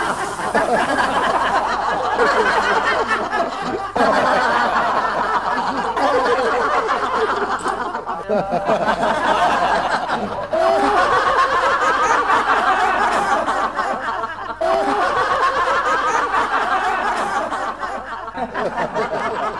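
A live audience laughing, mixed chuckles and snickers from many people. The laughter comes in waves, surging up sharply again several times and fading toward the end.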